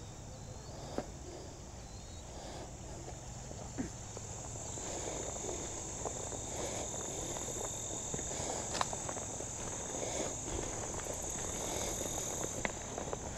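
A steady, high insect buzz goes on throughout and grows louder toward the end. Under it, footsteps rustle through grass and over loose stones, getting louder from about halfway through, with a few sharp clicks of stones.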